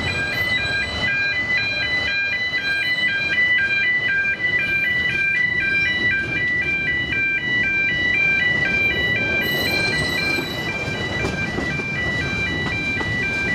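Level crossing warning alarm sounding, a rapidly alternating electronic two-tone wail repeating over and over, with the rumble of the moving narrow-gauge train beneath it.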